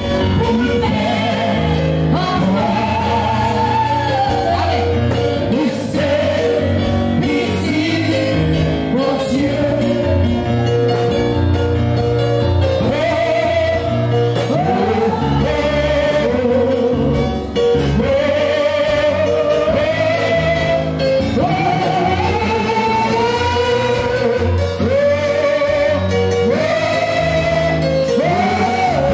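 Church congregation singing a gospel worship song together over instrumental backing, with a bass line moving in steady steps underneath.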